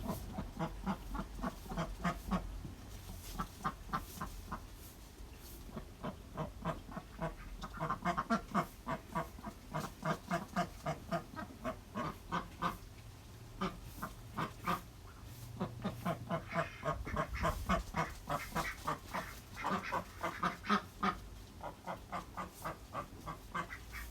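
Ducks quacking in long runs of short, rapid calls, several a second, in bouts broken by brief pauses.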